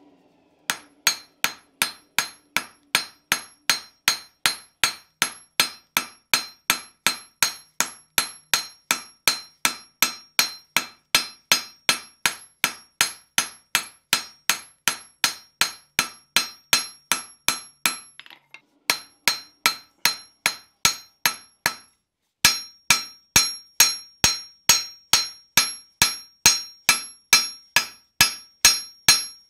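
Hand hammer striking a red-hot steel shoehorn blade on an anvil in a steady rhythm, about two to three blows a second, each blow ringing brightly as the blade is flattened. The hammering stops briefly twice in the second half, then carries on.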